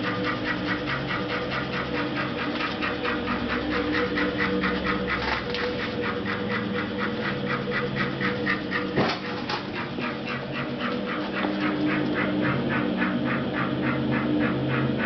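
A 1912 TUEC Model 210 central vacuum running steadily, its motor and single large impeller giving a steady hum overlaid with an even pulsing of about five beats a second. A brief click comes about nine seconds in.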